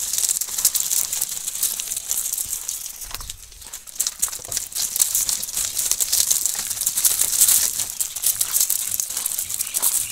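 Hooves of a tightly packed flock of rams shuffling and crunching on loose gravel: a dense crackle of many small clicks, easing briefly about three seconds in.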